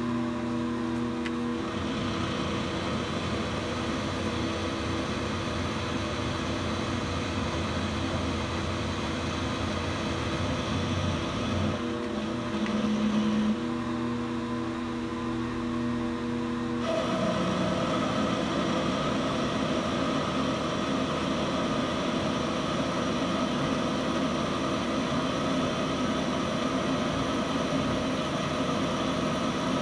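Milling machine running with a roughing end mill cutting into a metal block: a steady motor hum with cutting noise. A little over halfway through, the cut gets a little louder and harsher.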